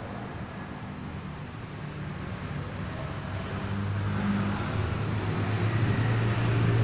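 A motor engine's low hum, growing steadily louder from about three seconds in.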